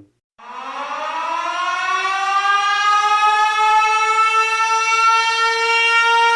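Siren sound effect winding up: it starts low about half a second in, rises in pitch and loudness over the first few seconds, then holds a steady wail.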